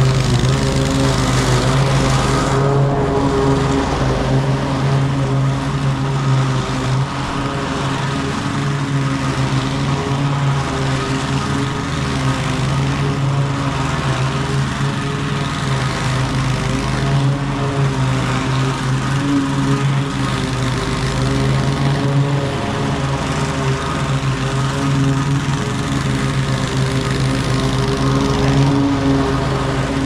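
Walk-behind gas lawn mower engine running steadily at a constant speed while mowing grass.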